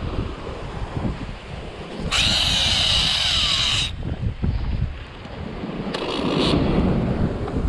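An Abu Garcia Ambassadeur 5000 multiplier reel gives a loud buzzing whir for nearly two seconds, starting about two seconds in, as line runs off the spinning spool; a faint tone inside it falls as the spool slows. A shorter, weaker whir follows about six seconds in. Behind both is the steady low rumble of wind buffeting the microphone and surf breaking on the rocks.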